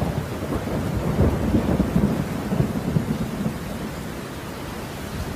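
Rain falling with a low rumble of thunder that builds about a second in and dies away after a couple of seconds.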